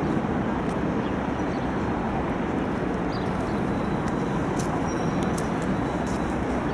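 Steady outdoor city din, mostly a low rumble of road traffic, holding even throughout with no single event standing out.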